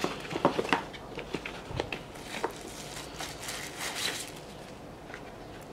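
Handling of a small cardboard retail box as its lid is opened and the TV box inside is lifted out: scattered light clicks, taps and brief rustles of cardboard, thinning out near the end.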